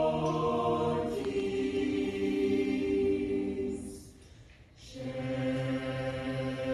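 Mixed church choir singing a slow hymn in sustained chords, breaking off for a short pause between phrases about four seconds in before resuming.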